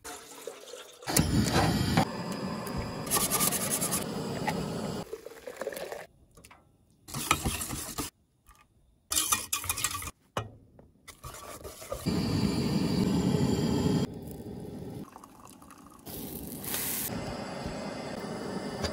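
A string of short camp-kitchen sounds cut one after another: water pouring into a stainless steel kettle near the start, then a wire whisk beating pancake batter in a steel pot, with pots and utensils clinking.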